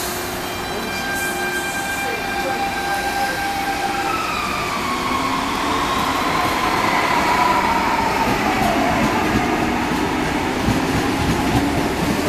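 CPTM Série 2000 electric multiple unit running past the platform: steady rolling of steel wheels on rail under a motor whine that falls in pitch midway through, growing slightly louder.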